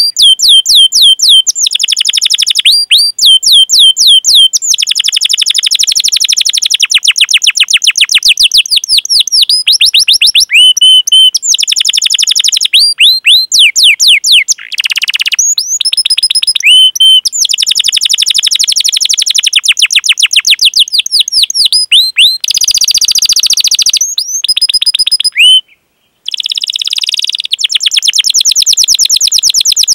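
Canary singing loudly in long phrases: rapid runs of high, downward-sweeping 'cuit cuit' chirps and fast rolling trills, with short breaks between phrases and a brief drop-out near the end.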